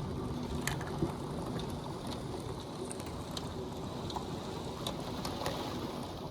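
Severe thunderstorm wind and rain: a steady rushing noise with scattered sharp ticks of raindrops striking nearby surfaces.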